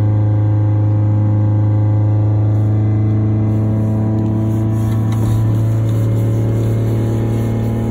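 Honda Civic VX's D15Z1 four-cylinder engine idling far too high, around 3,000 rpm with the throttle untouched, a loud steady drone heard from inside the cabin. This is a cold-engine high, climbing idle fault.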